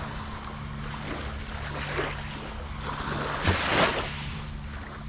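Small waves lapping on the shoreline of a calm sea. They wash in a few times, the biggest a little past halfway.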